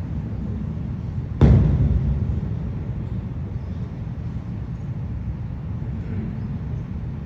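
Steady low background hum from a mosque's amplified microphone, with a single sharp thump about a second and a half in.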